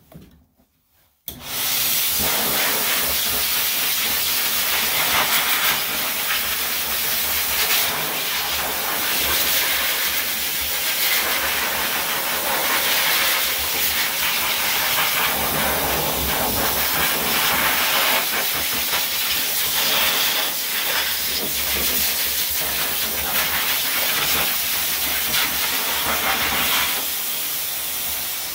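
High-velocity dog grooming dryer blowing air through its hose onto a dog's coat: a loud, steady rushing hiss that switches on about a second in and dies away near the end.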